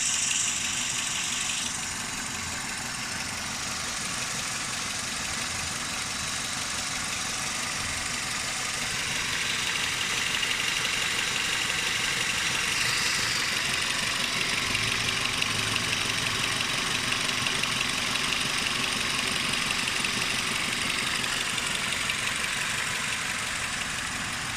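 Renault Mégane II 1.6 K4M four-cylinder petrol engine idling roughly with a knock. The owner says it is misfiring on three cylinders, knocking and detonating, and runs like a tractor.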